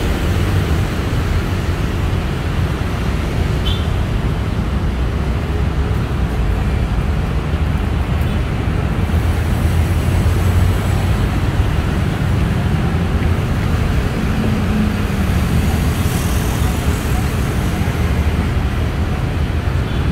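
Steady traffic noise from a busy city avenue: a continuous low rumble of passing motor vehicles, with no single event standing out.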